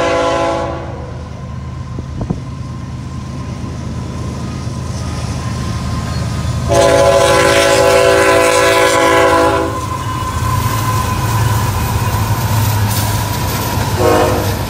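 Freight train led by two Ferromex diesel locomotives approaching and passing, its multi-chime air horn sounding the grade-crossing pattern: one blast ending just after the start, a long blast of about three seconds in the middle, and a short blast near the end. Beneath it the diesel engines rumble steadily, growing louder as the locomotives pass, with covered hopper cars rolling by near the end.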